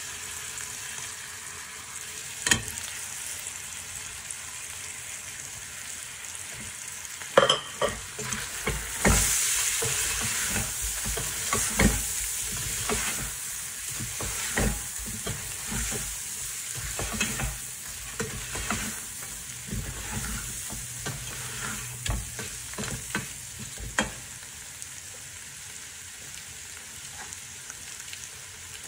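Meat and onions sizzling in oil in a stainless steel pressure-cooker pot, with a wooden spoon stirring and scraping against the pot. A single knock comes about 2.5 seconds in; the stirring clicks and scrapes run from about 7 seconds in until about 24 seconds, with the sizzle swelling briefly near the start of the stirring, and the last few seconds hold only the steady sizzle.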